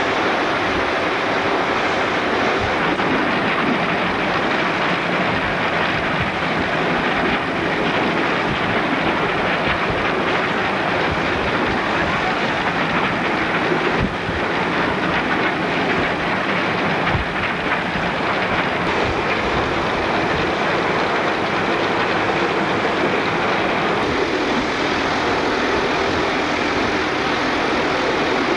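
Victorian Railways R class 4-6-4 steam locomotive running under way, heard from inside its cab: a steady, loud din, with a couple of sharp knocks past the middle.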